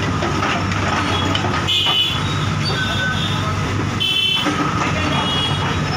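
Heavy diesel engine running steadily, the low drone of a vehicle such as a bulldozer working close by.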